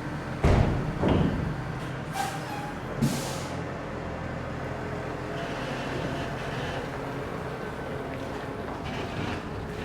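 Tractor diesel engine running steadily. Two heavy thumps come about half a second and a second in, and short hisses of air follow at around two and three seconds.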